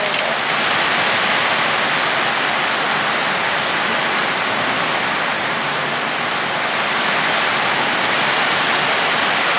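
Heavy rain falling on a corrugated metal roof, a steady loud hiss.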